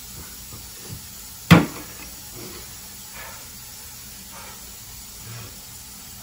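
A plastic water bottle set down on the coffee table: one sharp knock about a second and a half in, over a steady background hiss.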